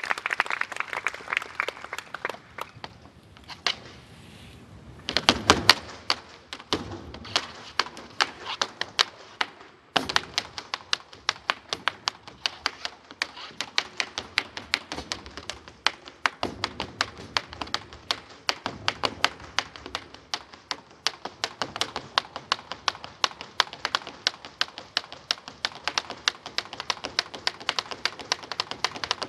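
Rapid gaucho-style footwork: heeled boots tapping and stamping on a wooden stage floor, mixed with the sharp strikes of swung bolas. After a quieter spell, a dense, fast run of sharp taps starts about five seconds in and keeps going with only brief breaks.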